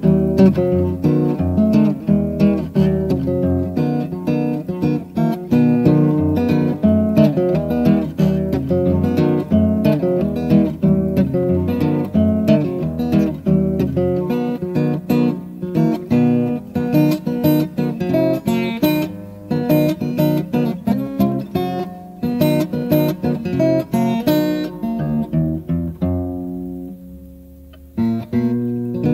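Instrumental guitar music with quick, busy notes. It dies away to a few held notes a few seconds before the end, then starts up again.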